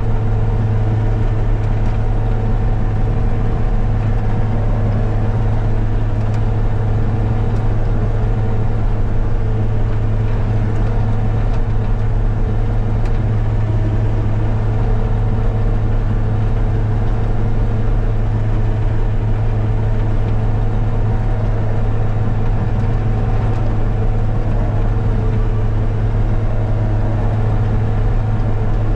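Engine running steadily at a constant speed: an even low hum that does not change.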